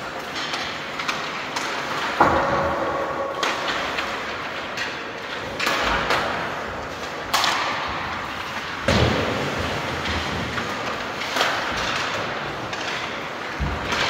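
A string of irregular thumps and knocks, roughly one every second or two, each with a short reverberant tail. One knock about two seconds in is followed by a ringing tone lasting about a second.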